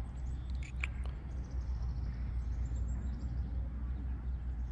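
Steady low outdoor rumble, with a short high bird chirp about a second in.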